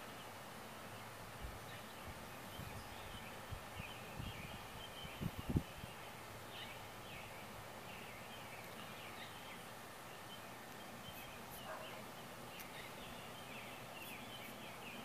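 Outdoor yard ambience with small birds chirping steadily in the background. A few low knocks come between about four and six seconds in, the loudest near five and a half seconds.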